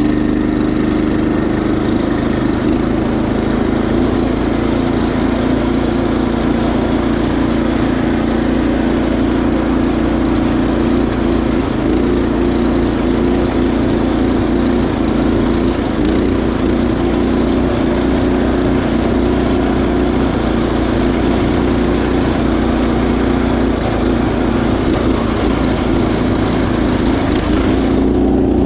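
Predator 212 single-cylinder four-stroke engine on a Craftsman GT5000 riding mower running at a steady speed, holding an even pitch as the mower drives along a gravel trail.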